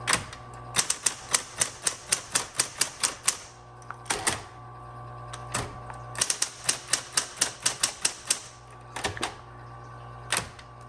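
Smith-Corona Coronomatic Super 12 electric typewriter being typed on: crisp key strikes come in quick runs of about five a second, broken by short pauses and a few single strokes, with a steady hum underneath.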